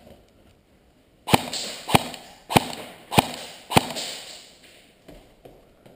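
Airsoft M4 replica fired five single shots, evenly spaced about 0.6 s apart, each sharp snap echoing in a large hall.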